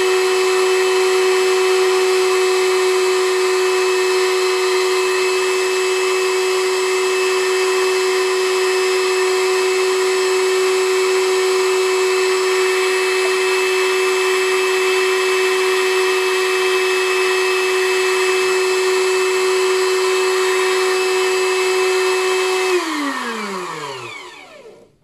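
Electric meat grinder, more than 30 years old, running noisy and steady with a high motor whine while stuffing sausage casing. It is switched off near the end and its pitch falls as the motor winds down.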